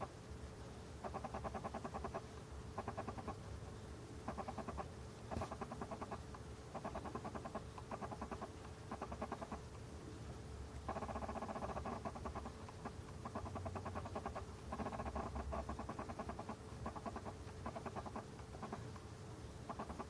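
A small animal's calls: short bursts of rapid chattering, repeating about once a second.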